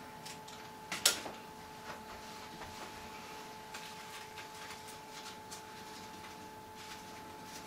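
Light clicks and rustles of flower stems and foliage being handled and pushed into an arrangement, with one sharp click about a second in. A faint steady whine sits underneath.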